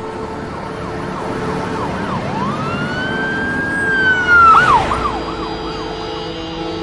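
Ambulance siren sweeping up and down in quick yelps, switching to one long high wail held for about two seconds, then dropping back into quick yelps, over a steady low drone.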